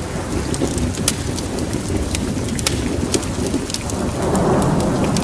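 Logo-intro sound effect: a steady deep rumble with sharp crackles scattered through it, swelling slightly about four seconds in.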